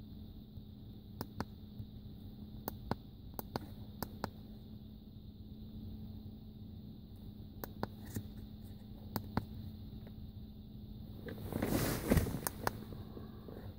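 Handheld OBD2 code reader being handled and its plastic buttons pressed: a dozen or so sharp, scattered clicks over a steady low hum, with a brief rustle of the hand rubbing over the device near the end.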